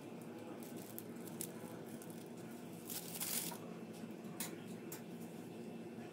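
Plastic piping bag crinkling and rustling as it is squeezed and handled, with a louder rustle about three seconds in and a few light clicks, over a steady low hum.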